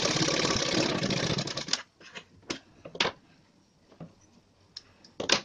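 Sewing machine stitching a folded fabric edge in a rapid, even run of needle strokes that stops about two seconds in, followed by a few scattered sharp clicks.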